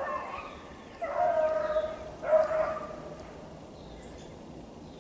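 Beagle baying: three drawn-out bays in the first three seconds, the second and third the loudest.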